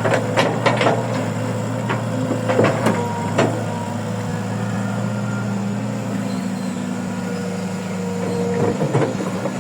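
Heavy diesel machinery running steadily, with a low hum, broken by sharp knocks and clanks several times in the first few seconds and once more near the end.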